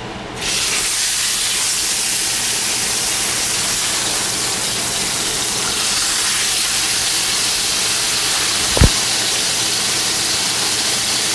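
Bone-in ribeye steaks sizzling steadily as they sear in a very hot, oiled cast-iron skillet. The sizzle starts about half a second in, as the first steak goes into the pan. One sharp click comes near the end.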